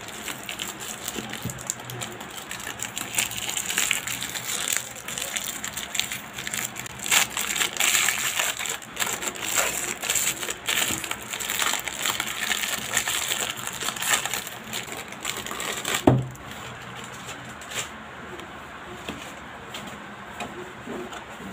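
Clear plastic wrap crinkling and crackling as it is pulled off a rolled PU mouse pad, with one sharp knock about three-quarters of the way through, after which only soft rustling is left.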